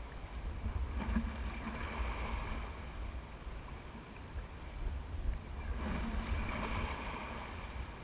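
Choppy water washing and splashing against a rocky shore, swelling about a second in and again around six seconds in. Under it, a fluttering low rumble of wind on the microphone.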